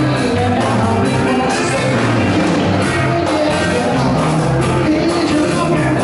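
Live blues band playing: electric guitars, bass, drum kit and keyboard together, over a repeating bass line with regular cymbal hits.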